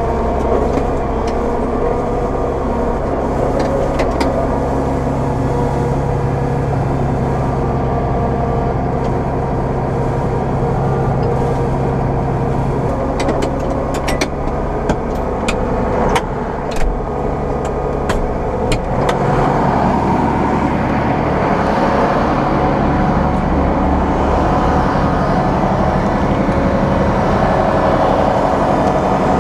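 John Deere 9500 combine running steadily under load while harvesting corn. A string of sharp clicks and knocks comes about halfway through, and after that the low machine sound turns more pulsing.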